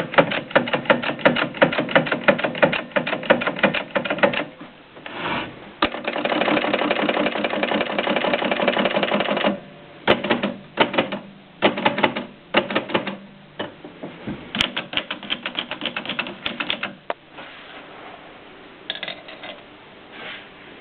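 Mignon index typewriter being typed: a fast run of clicking strokes, then a dense continuous rattle for a few seconds, then scattered bursts of clicks that grow sparse and quieter near the end.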